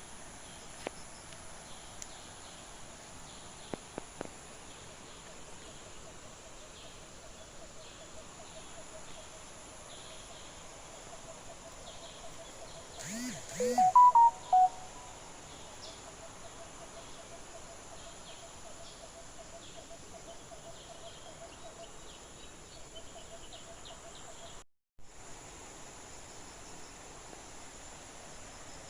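Outdoor garden ambience: a steady high insect drone and a lower continuous insect trill, with birds chirping faintly throughout. About halfway through, a brief louder cluster of sounds with a few short whistled notes stands out.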